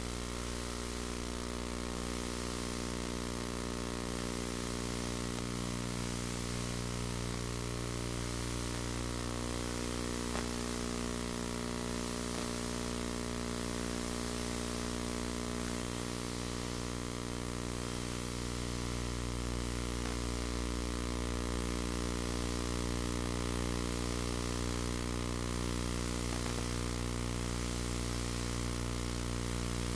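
Steady electrical hum and buzz with many even overtones over a constant hiss: the noise floor of a videotape transfer that carries no recorded sound.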